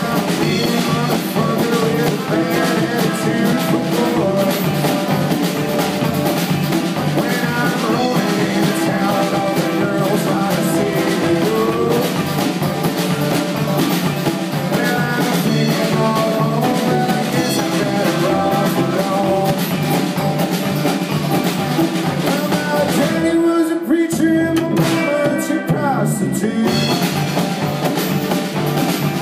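Live band playing an upbeat blues-rock number on banjo, electric guitar and drum kit. About three-quarters of the way through, the drums and low end drop out for a few seconds, leaving mainly the strings, before the full band comes back in.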